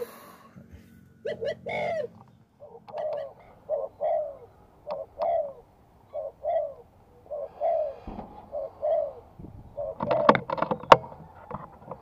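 Dove cooing: a steady series of short cooing notes, about one a second, with two sharp clicks near the end.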